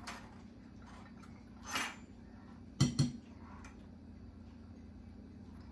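Two sharp clinks of a metal measuring cup and spoon knocking against a glass mixing bowl, about three seconds in, as yogurt is knocked out of the cup. A short scraping swish comes a second before.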